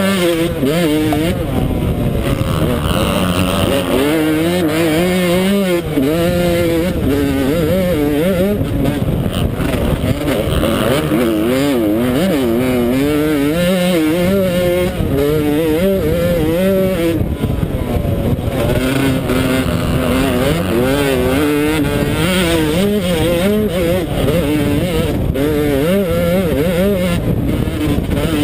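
Yamaha YZ125 single-cylinder two-stroke motocross engine heard from on board during a race, its pitch swinging up and down again and again as the rider opens and closes the throttle and shifts through the corners and straights.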